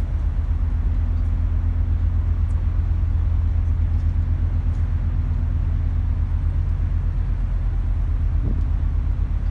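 Steady low drone of a ferry's engines heard from the open deck, with a constant low hum and a fainter higher tone running through it.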